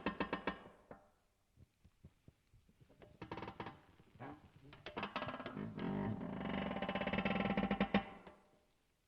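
Metal creaking in rapid ratcheting pulses. There are a few short creaks and clicks at the start, then almost nothing for about two seconds, then a long drawn-out creak that grows louder about five seconds in and stops shortly before the end.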